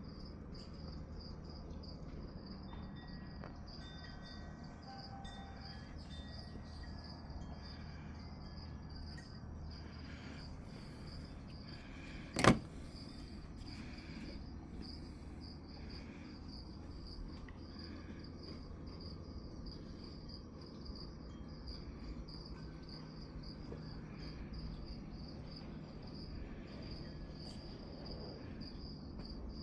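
Insect chirping steadily in fast high-pitched pulses over a low hum, with one sharp click about twelve seconds in.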